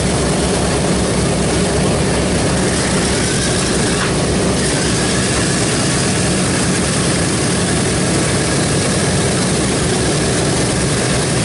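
Radial piston engines of a Boeing B-17G Flying Fortress running steadily on the ground with propellers turning: a loud, even drone with no change in speed.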